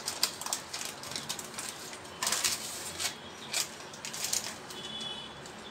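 Stiff plastic sheet crinkling and rustling in irregular bursts as hands roll and press a date mixture inside it, loudest a little over two seconds in.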